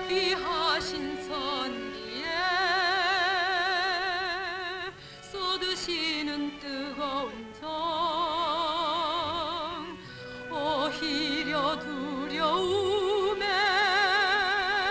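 A woman singing a song from a stage musical in a trained voice, with wide vibrato on long held notes.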